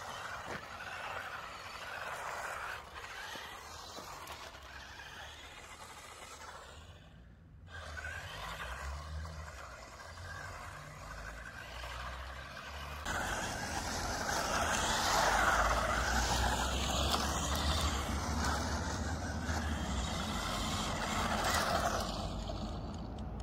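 Two small 1/16-scale 4WD electric RC cars driving on asphalt on road tyres: a hissing run of tyre and drivetrain noise that swells and fades as they move. It is louder from about halfway through, with a low rumble underneath.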